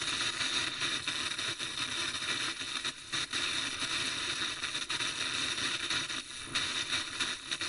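Broadcast static: a steady, even hiss of noise with a few brief dropouts, as the emergency-alert transmission breaks off.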